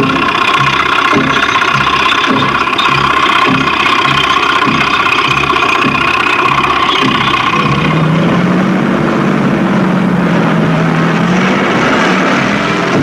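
Heavy military vehicle engines running, with a steady whine and a regular low thump a little under twice a second. About eight seconds in, a lower, steady engine note takes over and rises slightly in pitch.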